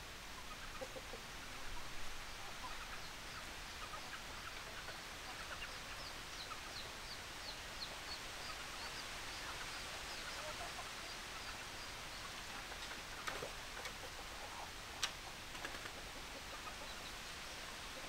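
Chickens clucking faintly over outdoor background noise, with a run of high, short chirps partway through and a sharp click about fifteen seconds in.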